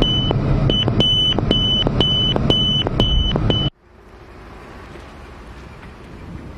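MiG-29 cockpit sound over the intercom: a loud steady rush with a high warning tone beeping about twice a second, which cuts off suddenly a little over halfway through. After that comes a much fainter rush of distant jet and wind noise.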